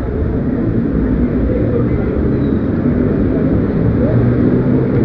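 Loud, steady ambient din with indistinct voices mixed in.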